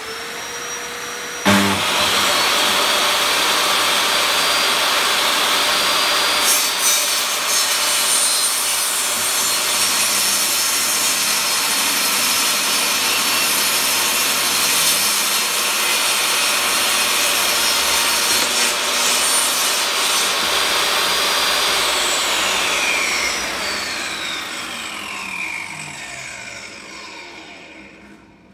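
Benchtop table saw motor spinning up, then running steadily for a long rip cut, cutting a taper along a hardwood board held on a carrier-board taper jig. After the cut it is switched off, and its pitch falls and the noise fades as the blade coasts down over the last several seconds.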